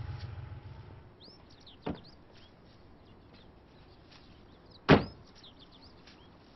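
A car door slams shut, loud and sharp, about five seconds in, after a lighter thump about two seconds in, while small birds chirp. A low rumble fades out in the first second.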